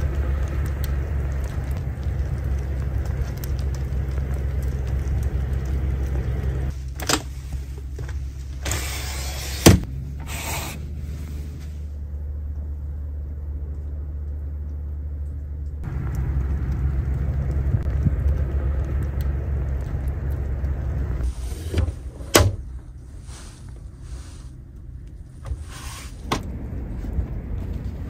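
A steady low rumble and hiss, broken about a third of the way in by a camper window sliding shut with a sharp knock. Later come a few more knocks and scrapes.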